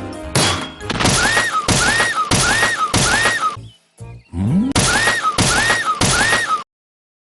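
A short cartoon sound bite stutter-looped: the same loud snippet, with a tone that rises then falls, repeats about every 0.6 seconds, four times, then after a brief break three more times, and cuts off suddenly near the end.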